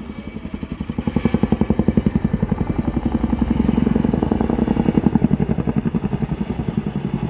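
Boeing Chinook HC6 tandem-rotor helicopter flying overhead, its twin rotors beating out a rapid, even pulse of blade thuds. It swells louder about a second in.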